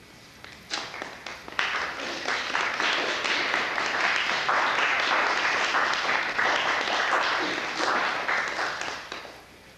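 Audience applauding after a poem: a few scattered claps, then full applause for about seven seconds, dying away near the end.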